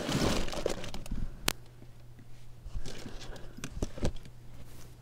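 Plastic zip-top bag of broken brooches crinkling as it is picked up and moved, with a sharp click about a second and a half in and a few fainter clicks and rustles later from the metal pins shifting inside.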